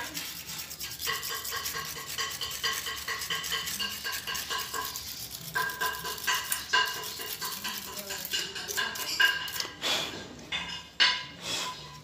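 Small brush scrubbing an inverter module circuit board to clean off stuck ants, with a string of short high tones repeating in the background. Near the end come sharper knocks and clatter as the board is handled.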